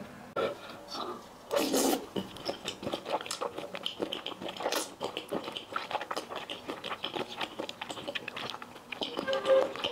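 Close-miked slurping and chewing of thick, sauce-coated potato noodles: a run of wet smacks and sucking slurps, the loudest slurp about two seconds in.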